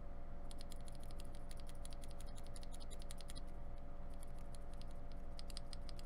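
Typing on a mechanical keyboard with Cherry MX-style switches and ABS double-shot keycaps: two runs of rapid keystroke clicks with a short pause between them, over a faint steady hum.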